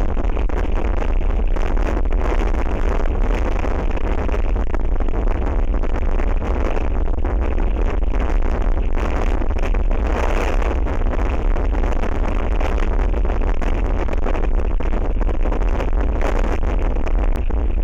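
Strong wind buffeting the outdoor camera's microphone: a steady, loud rumble and rush that does not let up.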